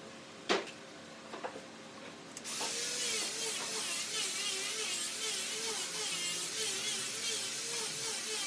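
A sharp knock, a few light clicks, then a handheld electric power tool starts about two and a half seconds in and runs on wood. Its motor pitch keeps wavering up and down as it works under load.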